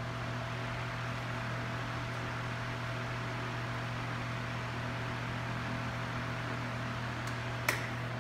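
Steady ventilation hum from the building's air-handling system: a low drone with a faint higher tone over an even hiss. A single sharp click sounds near the end.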